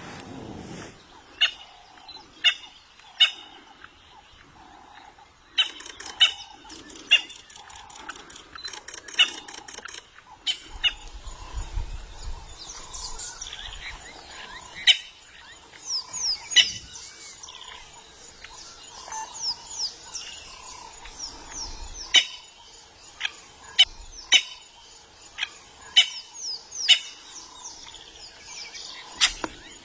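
Wild birds calling: repeated short, sharp calls every second or so, with a fast series of high descending whistled notes in the middle, over a faint steady background.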